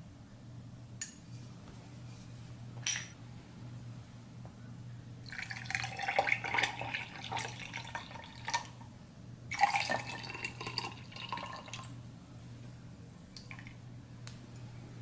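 Grapefruit juice poured from a jug over ice cubes into drinking glasses, splashing and filling. There are two pours of a few seconds each in the middle, with a few light glass clinks before them.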